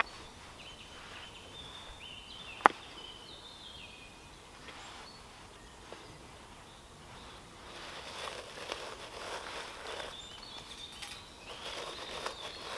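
Forest birdsong in short stepped notes, with one sharp click a little under three seconds in. In the second half comes the rustling and clicking of small gear being handled.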